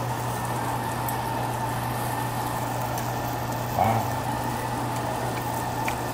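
Steady low hum with a hiss of meat sizzling on a coal-briquette grill. A short vocal grunt from the eater comes about four seconds in.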